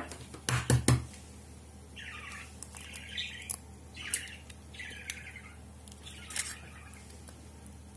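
An egg tapped sharply three times against the rim of a plastic mixing bowl to crack it, within the first second. Then a bird chirps and squawks in short calls, about five of them over the next few seconds, quieter than the taps.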